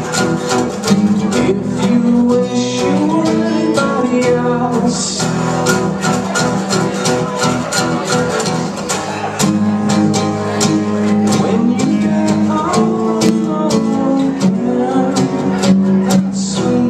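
Two guitars, one of them acoustic, playing an instrumental passage together: a steady, rhythmic strum of chords with notes moving over it.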